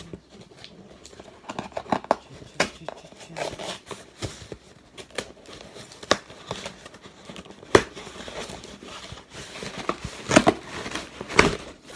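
Packaging being handled and opened by hand: crinkling of wrapping with irregular clicks and taps of cardboard.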